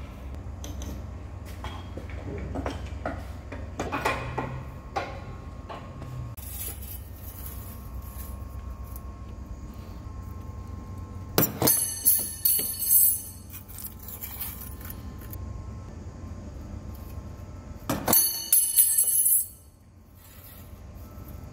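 Hand-lever bench guillotine shearing 2 mm brass flat bar: two sharp cuts, about eleven and eighteen seconds in, each followed by about a second and a half of bright metallic jingling. Before them come light clicks and knocks as the bar is handled and lined up under the blade, over a steady low hum.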